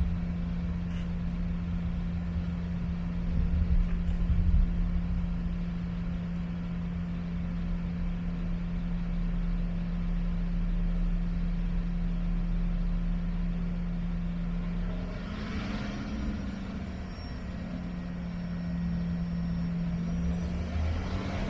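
Airliner cabin noise as the jet taxis on the runway: a steady jet engine hum over a low rumble. About three-quarters of the way through the hum wavers up in pitch and a hiss swells briefly.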